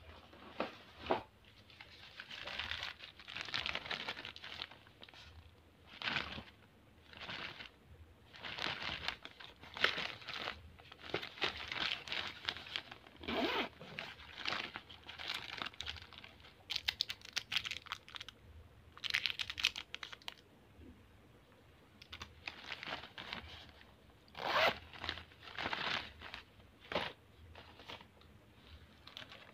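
Crinkling and rustling of a glossy plastic zippered pouch being handled and pressed down into a plastic toy truck's bed, in irregular bursts with short pauses between them.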